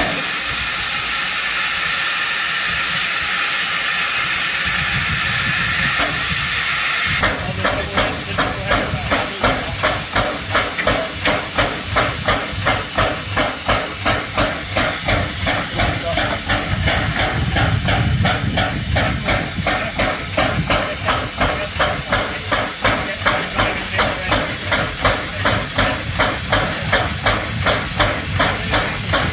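Narrow-gauge steam locomotive letting off a loud, steady hiss of steam. About seven seconds in the hiss cuts off sharply and gives way to a regular pulsing steam beat, about two a second.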